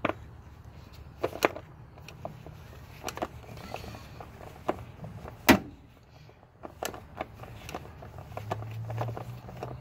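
Scattered clicks and knocks of hands handling plastic ignition-coil wiring connectors and parts in a Suzuki XL7's engine bay, the sharpest knock about five and a half seconds in. A low steady hum comes in near the end.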